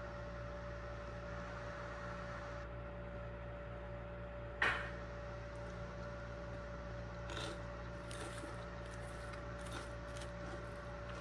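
A steady electrical-sounding hum, with one sharp knock about halfway through and a few faint clatters after it.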